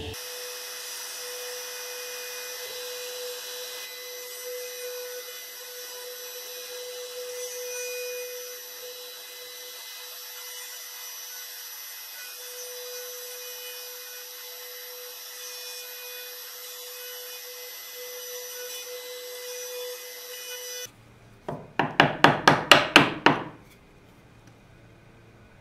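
A power tool cutting wood, running steadily with a faint steady tone, stops abruptly near the end. About eight sharp strikes on a chisel follow in quick succession, chopping into the wood.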